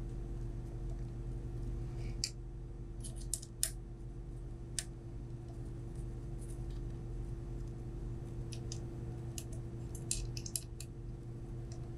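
Light clicks and ticks of small plastic parts and screws being handled as an LED panel board is fitted to a 3D-printed rover frame, coming in two scattered clusters, over a steady low hum.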